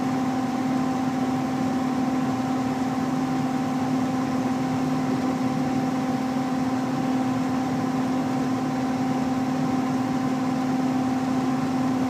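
Gas furnace running with its blower fan on and the burners lit: a steady hum with a constant tone over an even rush of air.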